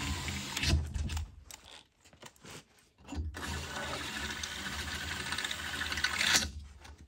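Power drill boring bolt holes through a solar panel frame. One run stops about a second in, and after a pause of about two seconds a second run lasts about three seconds, getting louder just before it cuts off.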